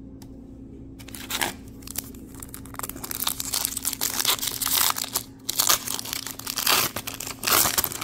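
Foil wrapper of a Topps Chrome trading card pack being torn open and crinkled by hand. It starts about a second in, as dense crackling that grows louder in the second half.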